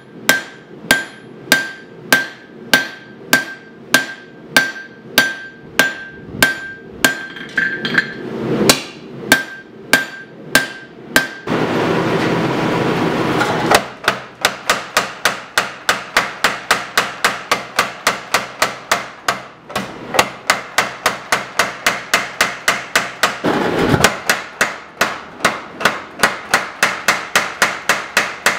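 Hot knife steel being hand-hammered on an anvil, about two blows a second, each strike ringing. After a couple of seconds of steady rushing noise, a 50 lb Little Giant power hammer pounds the blade in a rapid run of blows, about four a second.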